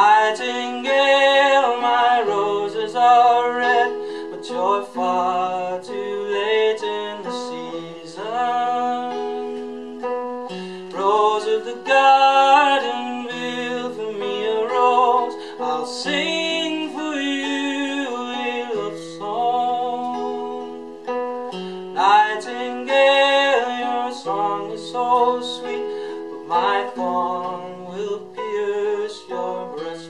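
A man singing a folk song, accompanying himself on a classical guitar. The sung phrases rise and fall over sustained plucked notes, with short breaks between lines.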